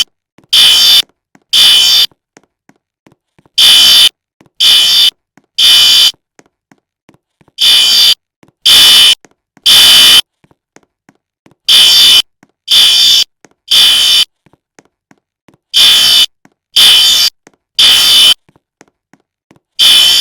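Fire alarm sounding the temporal-three evacuation pattern: loud beeps of about half a second in groups of three, each group repeating about every four seconds.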